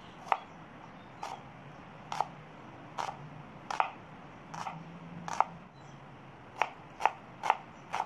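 Chef's knife cutting through an onion and knocking on a wooden cutting board, about one sharp chop a second, quickening to about two a second near the end as the slices are diced.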